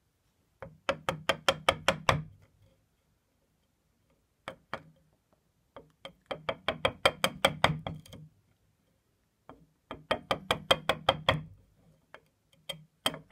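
Three runs of rapid, light knocks on wood, about eight a second and each lasting one and a half to two seconds, with a few single knocks between: a mallet tapping a chisel to chip old glue and broken wood out of a walnut chair leg's mortise.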